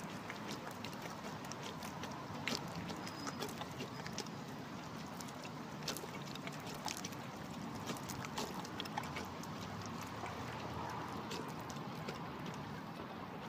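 Great Dane lapping water from the neck of a plastic bottle held to its mouth, making irregular clicks and smacks of tongue and lips.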